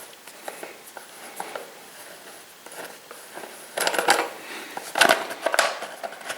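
Hands working on a chainsaw's plastic top cover and its fastening nut: faint clicks and ticks, then louder rattling and scraping clatter about four and five seconds in as the cover is worked loose and lifted off.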